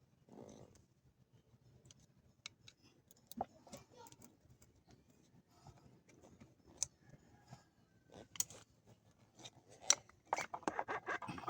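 Scattered light clicks and metallic taps of hand tools and small parts being handled, turning into a denser clatter near the end.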